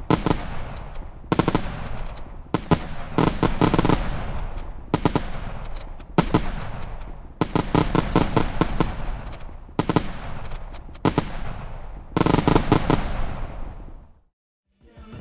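Fireworks cake shells bursting in a computer-rendered fireworks show: a volley of sharp bangs roughly every second and a quarter, each trailing off, until the sound stops abruptly near the end.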